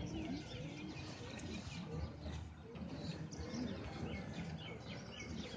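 Many small birds chirping and calling, short quick notes overlapping throughout, over a steady low background murmur.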